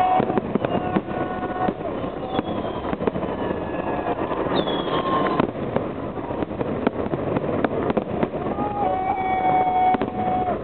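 Celebration fireworks salute: many quick bangs and crackles of shells bursting, over a steady din with long held tones, the longest near the end.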